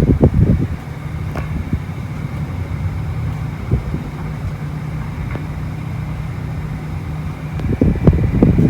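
1986 Mitsubishi Electric Kirigamine MSE-2240R air conditioner running in fan/cooling mode: a steady low hum with a faint high whine over it. Louder irregular rumbling at the very start and again near the end.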